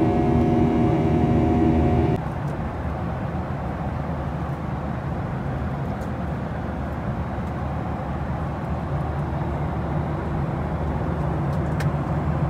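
Airliner cabin noise in flight: the steady roar of jet engines and airflow. For the first two seconds it carries a steady multi-tone hum, then cuts to a slightly quieter, even low rumble.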